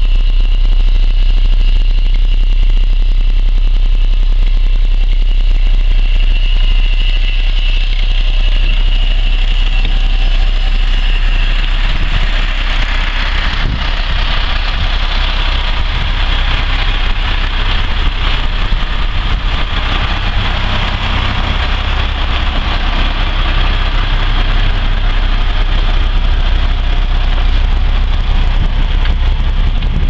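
Diesel engine of a 1989 Blue Bird school bus idling steadily.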